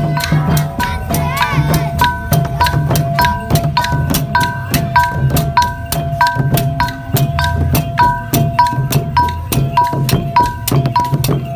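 Khmer chhay-yam ensemble playing: long-necked chhay-yam hand drums beaten with the palm, with small hand cymbals clashing in a quick, even beat.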